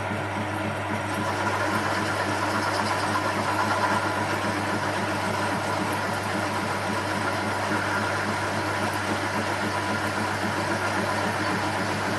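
Metal lathe running steadily, turning down a length of metal tube with the cutting tool taking a pass along it.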